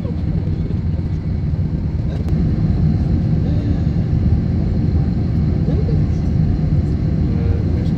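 Steady low rumble inside the cabin of an Airbus A321 parked at the stand, getting a little louder about two seconds in. Faint passenger voices sound over it.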